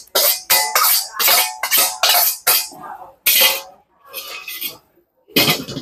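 Metal spatula scraping a steel wok in quick strokes, about three a second, pushing fried rice vermicelli out into a bowl; then three slower, separate scrapes in the near-empty wok.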